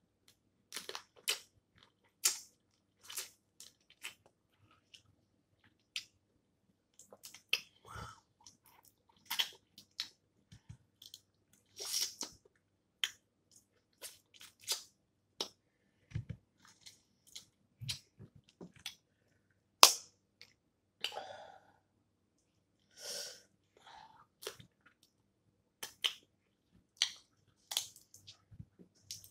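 Eating snow crab legs: irregular sharp cracks and snaps of the shells, mixed with chewing. The loudest crack comes about twenty seconds in.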